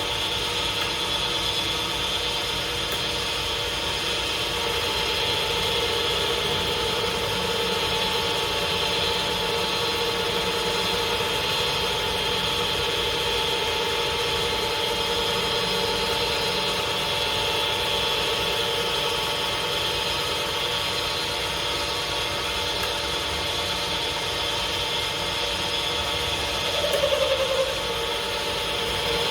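Lathe running steadily, a constant machine hum with a steady whine in it, briefly louder with a wavering pitch near the end.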